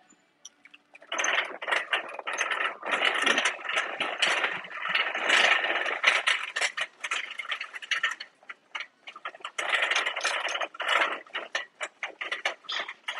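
Shopping cart being pushed along a hard store floor: its wheels and basket rattle and clatter continuously, starting about a second in, with a few brief lulls.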